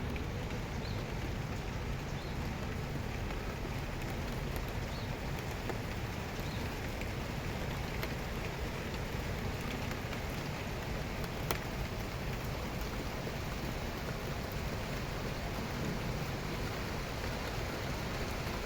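Steady rain falling, a continuous even hiss with scattered small drop ticks and one sharper tick about eleven seconds in.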